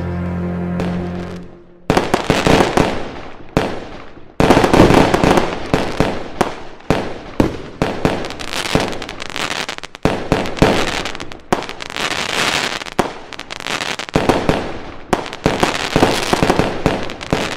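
Music ends on a held chord that fades out about two seconds in. Then comes a loud string of sudden bangs, roughly one a second, each trailing off in a crackle.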